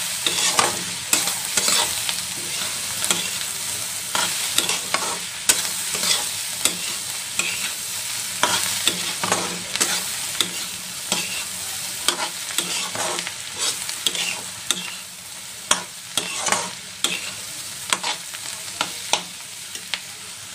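Metal spatula stirring and scraping chopped onions and ground spices frying in mustard oil in a metal kadhai: a steady sizzle with irregular scrapes and clinks of the spatula against the pan.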